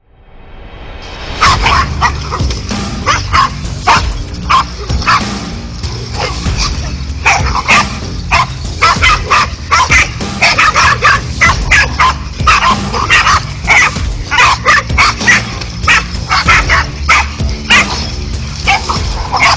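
A pack of dogs barking and yapping in a rapid, irregular string as they confront a snake, fading in over the first second or so.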